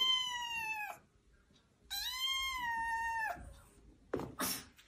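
Kitten meowing twice, two long, high-pitched meows: the first trails off about a second in, and the second starts about two seconds in and lasts about a second and a half.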